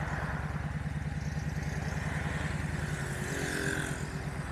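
Motorcycle engine running steadily, its even firing pulses continuous throughout.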